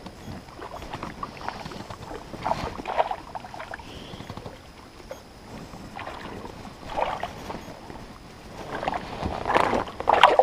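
Irregular water splashes and sloshing at the edge of a lake, in scattered bursts with a louder cluster near the end.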